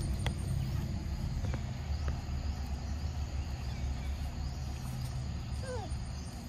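Outdoor ambience: insects chirping steadily over a low rumble, with a few faint clicks and, near the end, a short call sliding downward in pitch.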